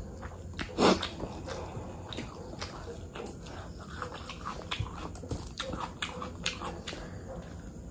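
Close-miked wet chewing and mouth smacking on a mouthful of mutton curry and rice, with frequent small clicks, and one much louder wet smack about a second in.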